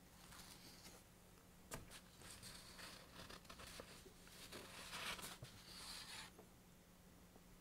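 Near silence: faint rustling noises for most of the time, a single click about two seconds in, and a low steady hum underneath.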